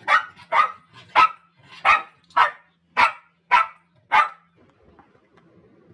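Black-and-white spaniel-type dog barking at a cat: eight sharp barks at about two a second, stopping about four seconds in.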